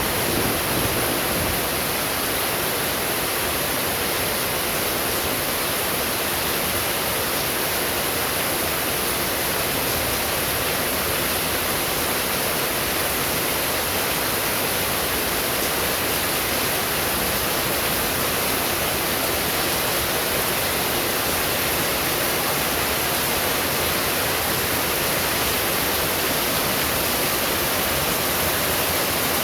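Steady, unbroken rushing hiss of falling water, with no thunder rumble or claps.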